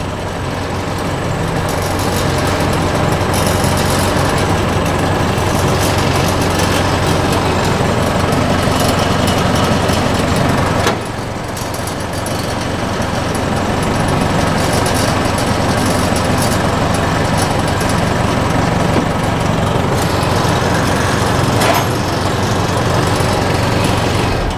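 Engine of a pallet-fork machine running steadily while its hydraulic forks are lowered, with a brief drop in level about eleven seconds in.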